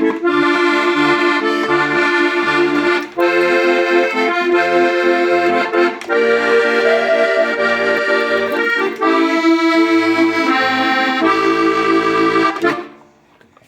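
Hohner Corso diatonic button accordion in C/F playing a tune: a melody over chords with a pulsing bass accompaniment, pausing briefly a few times. The playing stops about a second before the end and dies away.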